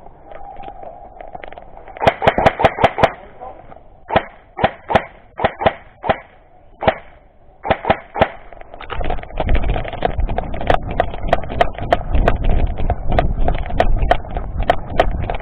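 Airsoft guns firing: a quick burst of sharp cracks about two seconds in, then single shots spaced out, then denser rapid clicking over a low rumble from about nine seconds on.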